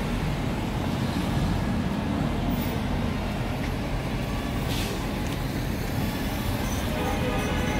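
City street traffic at a busy downtown intersection: a steady low rumble of passing vehicles, with a short hiss about five seconds in.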